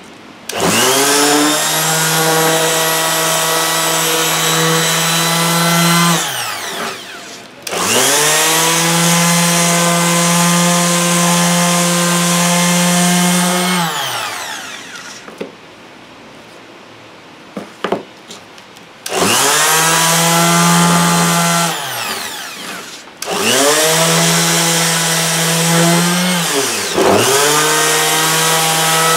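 Oxford OXFS-82 electric orbital sander switched on and off several times while held on a block of wood. Each start is a rising motor whine that settles into a steady buzz, and each stop winds down in falling pitch. The first two runs last about six seconds each; the later ones are shorter, with quick stops and restarts near the end.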